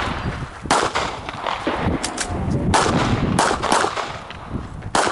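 Pistol shots from an STI 2011 Edge in .40 S&W, fired in a rapid string with several quick pairs, each crack followed by a short echo.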